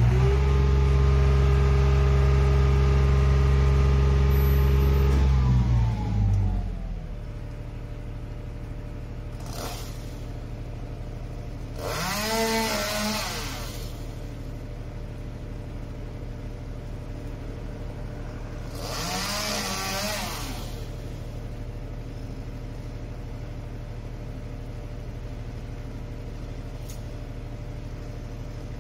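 Boom-lift truck engine held at raised revs, then winding down to a steady idle about six seconds in. Twice later, a short sound that rises and falls in pitch comes over the idle.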